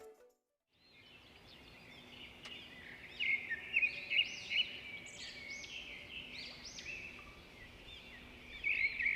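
Wild birds singing and chirping in a stream of quick, high arched notes that starts about a second in, after a brief silence.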